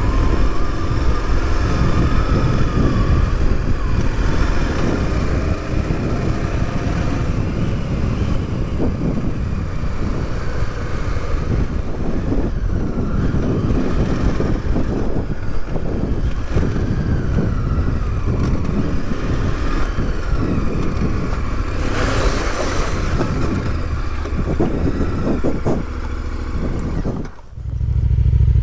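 KTM 1090 Adventure's V-twin engine running while riding a rough dirt track, its pitch rising and falling with the throttle over a heavy rumble of wind and ground noise. Near the end the sound dips briefly and gives way to a steady low hum.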